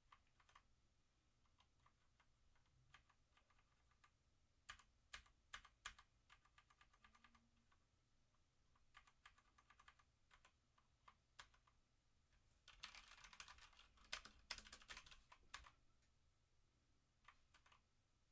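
Keystrokes on a Motospeed CK61 60% mechanical keyboard, faint: scattered key presses and short runs, then a burst of fast typing about thirteen seconds in that lasts a couple of seconds.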